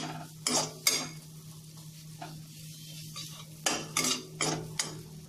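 A perforated metal skimmer scraping and stirring frying onion-tomato masala in a metal kadhai, with faint sizzling. Two scrapes come in the first second, then a quieter stretch, then four quick scrapes near the end, over a steady low hum.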